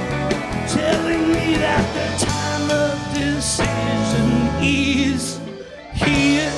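Rock band playing live with singing over guitars and drums. Near the end the playing drops away for a moment, then one last loud chord with a cymbal crash is struck and left ringing as the song ends.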